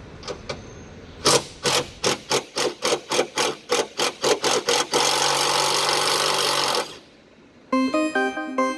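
Impact wrench hammering in a run of quick bursts that come faster and faster, then spinning freely with a steady whir for about two seconds before stopping abruptly. Music starts near the end.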